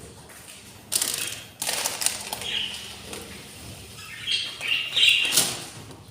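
Budgies fluttering and rustling, with short chirps about halfway through and again near the end.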